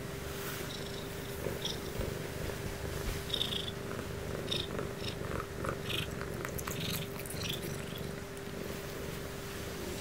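Ragdoll cat purring steadily at close range while being stroked on a bed. Short soft rustles and clicks from fur and bedding come through the middle as she moves.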